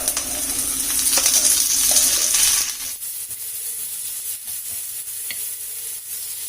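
Onions, green chillies, curry leaves and sliced tomato frying in oil on a hot tawa, sizzling with the scrape and clack of stirring. The sizzle drops sharply in loudness about three seconds in, then carries on more quietly.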